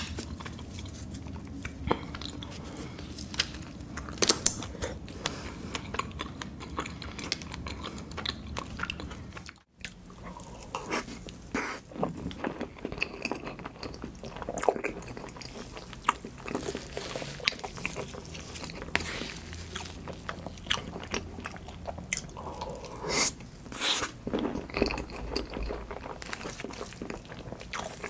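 Close-miked chewing and biting of food, with wet mouth sounds and crunchy crackles. The sound briefly cuts out about ten seconds in, then the chewing carries on.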